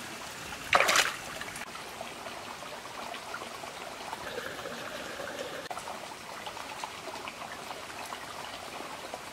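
Shallow stream water trickling steadily over rocks, with a brief splash about a second in.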